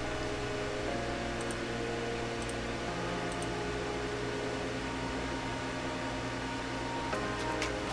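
Soft background music of held chords that change every few seconds, over a steady hiss and low hum, with a few faint clicks.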